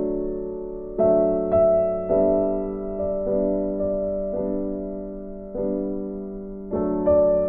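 Background music: gentle piano or electric piano playing slow chords, a new chord struck about every second and left to fade.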